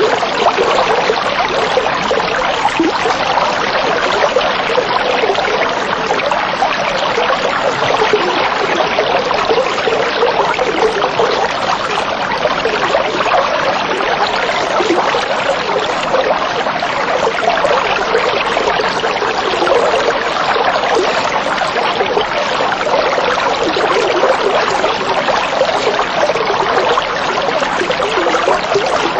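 Steady trickling water, an even splashing hiss with no pauses or changes.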